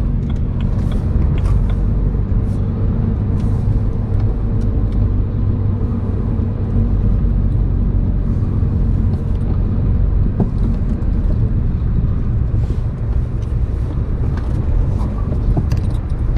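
A car driving, with a steady low engine and road rumble and a few faint ticks and rattles over it.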